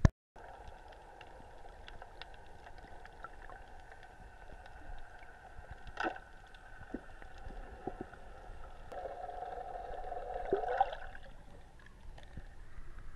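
Underwater sound of a boat's motor carried through the water: a steady whine with scattered sharp clicks. It swells near the end, then cuts off about eleven seconds in as the camera breaks the surface.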